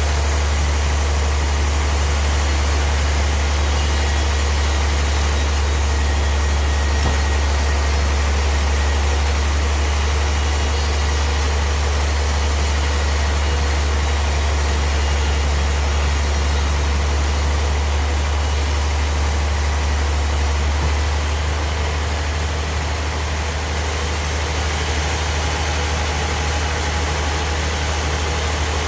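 Sawmill machinery running with a steady, loud low drone and a constant hiss over it; the high hiss eases a little about two-thirds of the way through.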